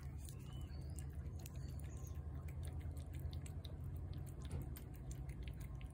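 A feral tabby cat eating shredded chicken from a plate: a steady run of small, quick chewing and smacking clicks over a low steady rumble.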